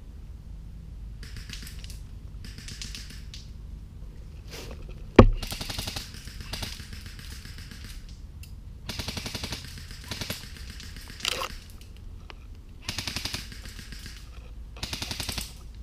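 Airsoft guns firing several short rapid bursts, each a fast rattle of shots. A single sharp, loud crack a little after five seconds in is the loudest sound.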